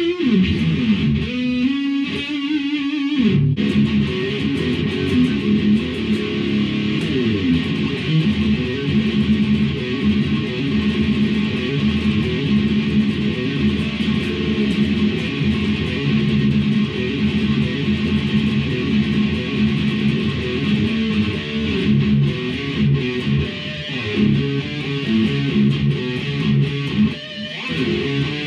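Electric guitar, an ESP LTD Deluxe EC-1000 with its original soldered EMG 81 and 85 pickups, played on its own: a few held notes, then continuous riffing from about three seconds in.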